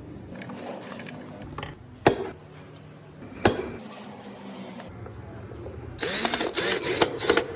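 Two sharp clicks, then a loud, fast ratcheting clatter of a small mechanism for about a second and a half near the end.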